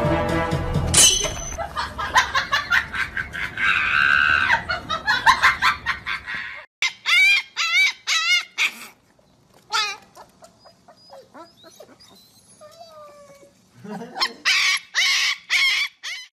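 Background music for the first few seconds, then a Siberian husky puppy howling in short, high, wavering cries: a run of four, a single one, a few faint ones, and another group near the end.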